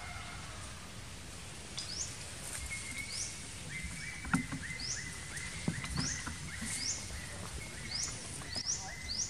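Woodland ambience in which a bird repeats a short high chirp about once or twice a second from about two seconds in, over a steady hiss. A couple of sharp knocks sound around the middle.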